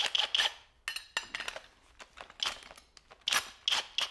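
Irregular light metallic clinks and knocks from tools or hardware being handled and set down, about a dozen short taps.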